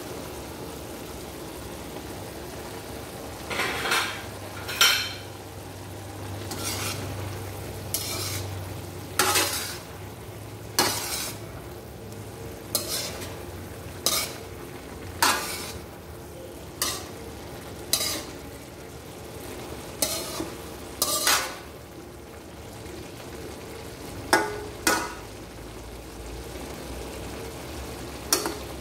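Spatula stirring string beans and ground pork in a metal wok, scraping against the pan in sharp strokes every one to two seconds, over a steady sizzle of frying.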